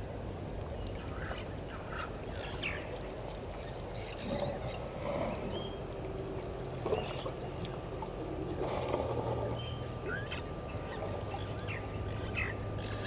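Waterhole ambience of many short bird chirps and whistles, some sweeping up or down in pitch, over a steady low hum and high hiss. Two louder spells of lower, rougher sound come about four and nine seconds in.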